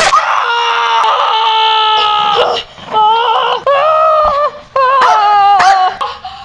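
A person screaming loudly and shrilly: one long scream of about two and a half seconds, then three shorter screams.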